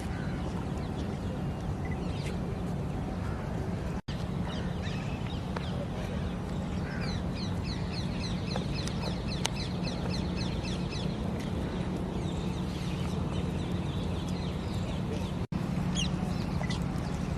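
Steady outdoor background rumble with a low hum, over which small birds chirp in quick runs, most clearly in the middle. The sound cuts out for an instant twice.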